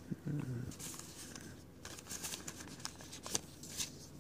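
Faint crinkling and tearing of a trading-card pack's foil wrapper being opened, with scattered light crackles.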